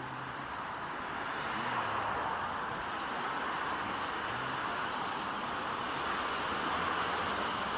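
Road traffic noise: a steady hiss of vehicles on the road, swelling a little about two seconds in.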